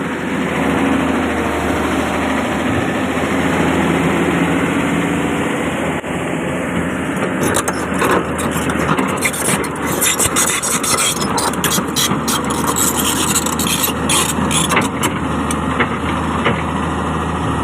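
Hydraulic excavator's diesel engine running steadily as the machine works. From about seven seconds in, irregular sharp knocks and clatter sound over the engine.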